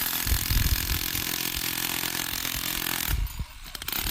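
Vevor electric jackhammer running, hammering rock with a rapid steady chatter. It stops briefly about three seconds in, then starts again.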